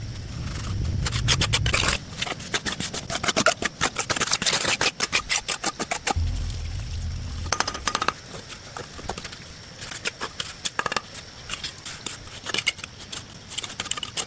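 A quick run of clicks and clinks, hard objects knocking together, thickest in the first half and thinning out later, with a low rumble at the start and again around six seconds in.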